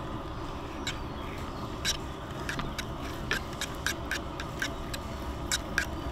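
Kitchen knife working raw meat on a wooden cutting board: a run of light, irregular clicks and taps as the blade meets the board, over a steady low background rumble.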